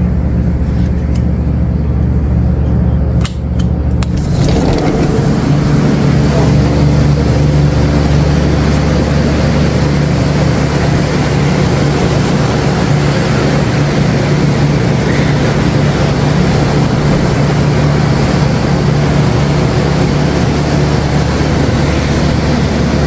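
Steady low hum, joined about four seconds in by a loud, even rushing noise.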